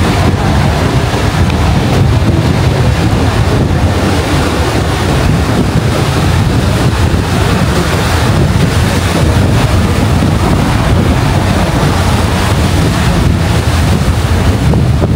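Strong wind buffeting the microphone: a loud, steady rumbling rush with no pauses.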